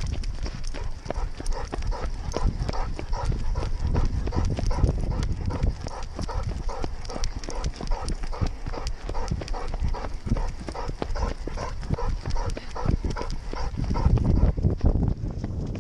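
A running weimaraner panting in a quick, even rhythm of about three breaths a second, with its footfalls and the jostle of the dog-mounted camera. The low rumble grows heavier near the end.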